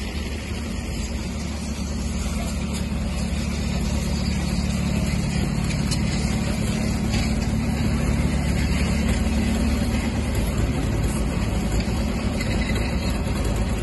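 Crawler tractor engine running steadily as it pulls a train of loaded freight sleighs, getting a little louder a few seconds in.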